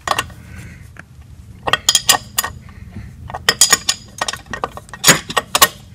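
Ratcheting wrench clicking in short runs, with metal clinks, as a bolt is turned into the one-piece driveshaft's front flange at the transmission. The bolt is tight and binding, a sign of its wrong thread pitch.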